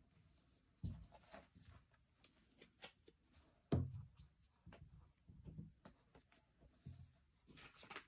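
Liquid chalk marker faintly scratching and tapping on a coloring card, with two soft thumps, about a second in and near four seconds.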